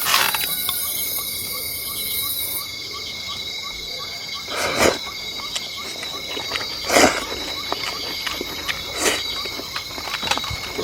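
Summer insects chirping steadily, with a faint regular ticking about three times a second. Three short, louder sounds stand out around the middle.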